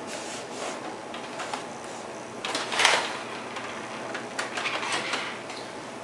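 Hands working a computer keyboard and mouse on a desk: scattered clicks and taps, with a louder rustling scuff nearly three seconds in.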